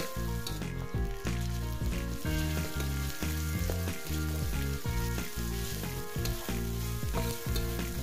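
Chopped onion, garlic and spice paste sizzling as they fry in a wok, with a metal spatula stirring and scraping the pan, over background music with a steady bass line.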